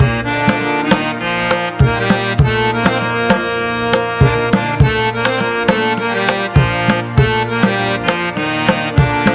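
Background music: tabla drumming with regular sharp strokes and low, bending bass-drum notes under a sustained melody.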